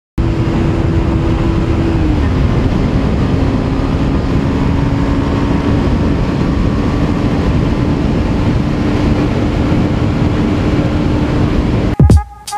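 Bajaj Pulsar 150's single-cylinder engine running hard at about 90 km/h under heavy wind rush on the microphone, its steady note dipping slightly about two seconds in and then holding. Music starts abruptly near the end.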